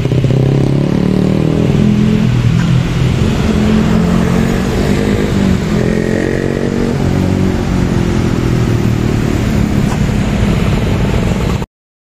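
Medium tour bus's engine running past under load, its pitch rising and falling. The sound cuts off suddenly near the end.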